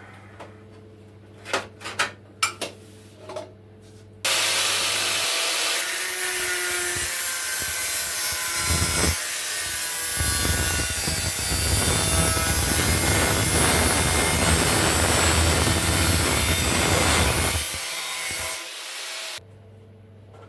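A few sharp knocks, then a tool scraping and abrading metal in one long, loud, rough run of about fifteen seconds that starts and stops abruptly.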